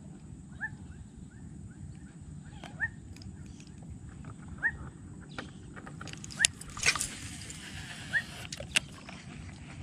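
Short rising squeaky animal calls repeat every second or two over a steady low rumble. In the second half come a few sharp clicks and a soft rushing noise.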